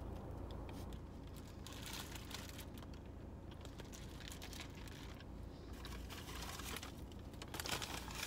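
Paper sandwich wrapper crinkling in the hands in several short bursts, between mouthfuls of chewing, over a low steady hum.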